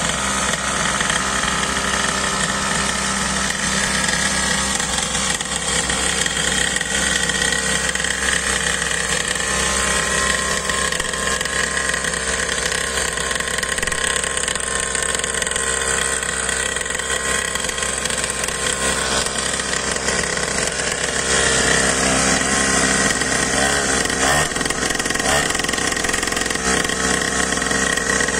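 A HIGHPER DBK01 children's pull-start pocket dirt bike, its small two-stroke engine idling steadily, a little louder from about two thirds of the way in.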